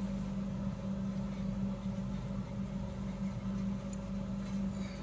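A steady low background hum, like a fan or electrical hum, running evenly with no clicks or changes.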